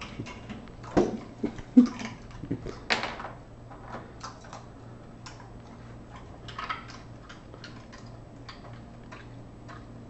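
Irregular clicks and crunches, sharpest in the first three seconds and fainter after: a young husky chewing ice cubes from the floor and its claws ticking on the tile. A faint steady low hum runs underneath.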